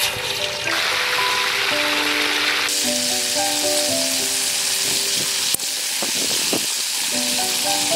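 Frog pieces deep-frying in a large wok of hot oil: a loud, steady sizzle that grows louder about three seconds in. Background music with a plucked melody plays underneath.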